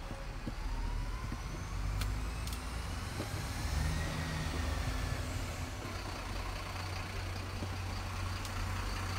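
Low, steady engine rumble of a motor vehicle, with a faint tone that rises and then falls over it and a few faint clicks.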